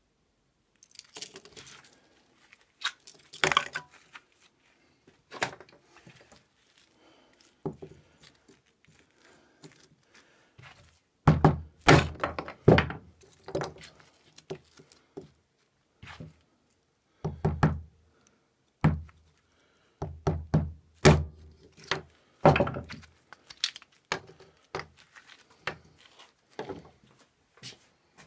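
Rubber mallet striking a small neck knife to baton it through wood: an irregular series of heavy thuds and knocks, thickest in the middle, with the wood splitting.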